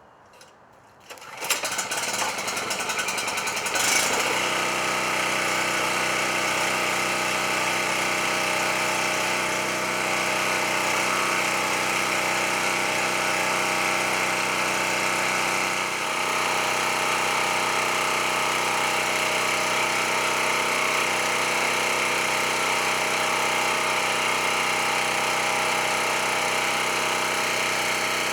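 Champion 4000-series portable generator's small gasoline engine starting about a second in, then running loud and steady, about 100 decibels right next to it.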